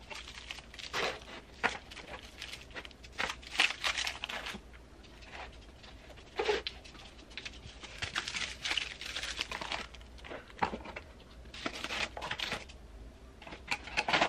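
Plastic bubble wrap and packaging crinkling and rustling as it is handled, with scattered light knocks and taps of small jars and the cardboard mailer box as it is packed and its lid folded.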